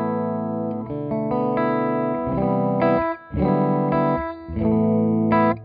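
Electric guitar chords played through a Tyler JT22 amp with its reverb, several strummed chords rung out with short breaks between them.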